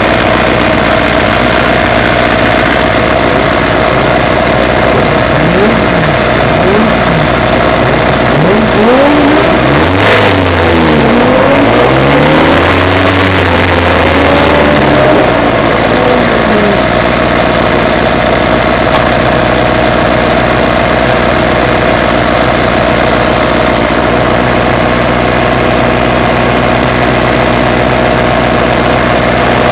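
Dallara 392 Formula 3 car's Volkswagen four-cylinder racing engine idling. Through the middle it is revved in a series of quick throttle blips that rise and fall in pitch, and then it settles back to a steady idle.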